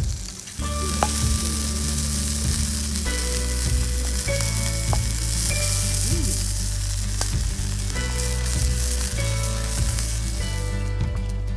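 Food sizzling and frying in a hot pan, a dense steady hiss, over background music with steady low notes.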